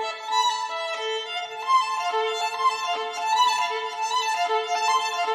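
Background music: a violin melody moving in short notes, with one lower note that keeps coming back.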